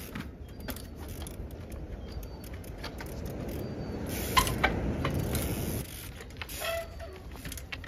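Trials bike hopping on a concrete sea wall: sharp knocks of tyres and frame on the concrete, loudest twice about four and a half seconds in, over a low rushing noise that swells and then stops suddenly. A brief squeal follows near the end.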